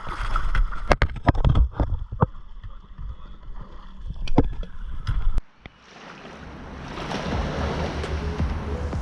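Muffled underwater knocks and clicks over a low rumble, as from a camera in a waterproof housing during a dive. About five seconds in it cuts off suddenly, and a steady rushing noise like surf and wind swells up in its place.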